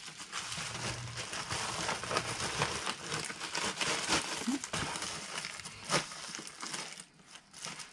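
Plastic bag and mailer envelope rustling and crinkling as a bagged item is slid into a padded flat rate envelope and the envelope is pressed flat, with one sharper crackle about six seconds in.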